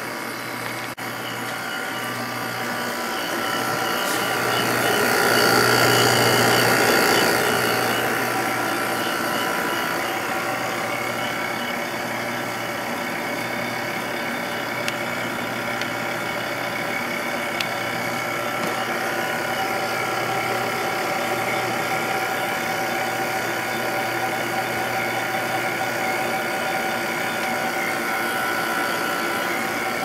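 1997 Sharp window air conditioner running with its case off: the Matsushita compressor hums steadily under the fan. The sound swells louder for a few seconds about five seconds in, then holds steady.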